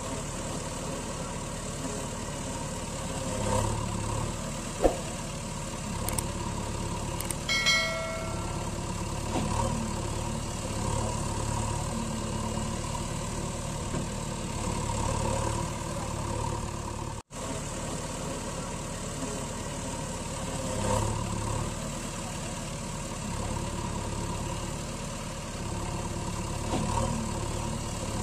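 Truck engine idling steadily, a recorded engine sound rather than the unpowered toy. There is a sharp click about five seconds in and a short pitched tone near eight seconds. The sound cuts out for an instant about seventeen seconds in.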